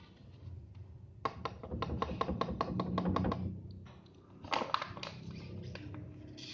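Small plastic milk pouch shaken hard in the hands: a quick run of crinkling slaps, about six a second, for two seconds or so, then a short burst of plastic crinkling as it is handled again.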